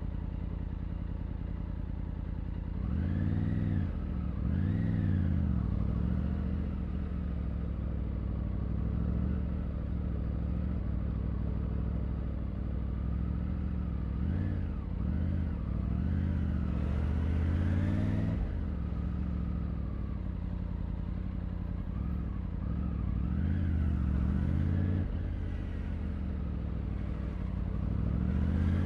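Triumph Tiger 900's inline three-cylinder engine, heard raw from the rider's seat. It runs steadily at first, then rises and falls in pitch through short bursts of acceleration. One longer pull rises and cuts off sharply about two-thirds of the way in, and more short revs follow.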